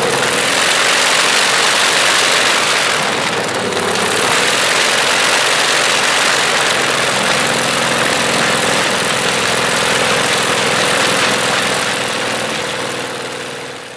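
Shvetsov ASh-62 nine-cylinder air-cooled radial aero engine running steadily on a test stand with no propeller fitted. It fades away near the end.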